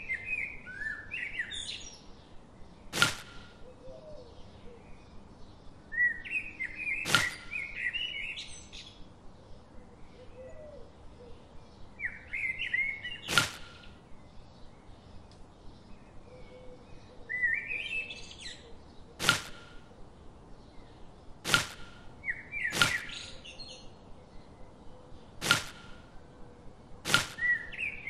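Sugarcane pieces being set down one at a time on a small wooden toy trolley: about eight sharp knocks, a few seconds apart. A bird sings short chirping phrases every few seconds in between.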